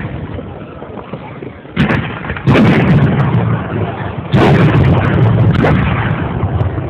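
Aerial firework shells bursting: three sudden booms, near two, two and a half and four and a half seconds in, each trailing off in a long rumbling echo.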